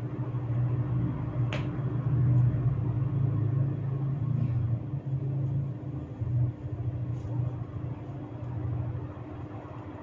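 Head massage: hands rubbing and kneading the scalp and hair close to the microphone, heard as an uneven low rumbling rub, with one sharp crack about a second and a half in and a fainter click a few seconds later.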